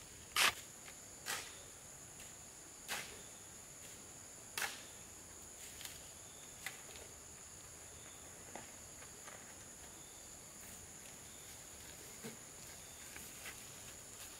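A hoe chopping and scraping through wet mortar, four short strokes spread over about five seconds. After that, only a steady high-pitched insect drone with a few faint ticks.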